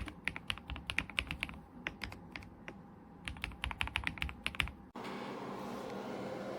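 Typing on an Ajazz AK820 Pro mechanical keyboard with lubed Ajazz Gift switches: rapid, irregular keystroke clacks with a brief pause in the middle. About five seconds in the typing cuts off abruptly, leaving a steady hiss with a faint hum.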